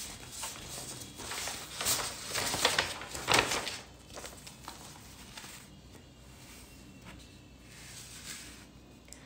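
Sheets of paper rustling and being shuffled by hand, loudest during the first four seconds, then fainter, scattered rustles.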